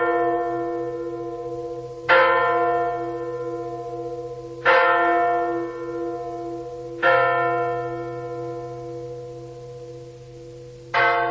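A large bell tolling: four strikes of the same note a couple of seconds apart, the last after a longer pause, each ringing on and slowly fading.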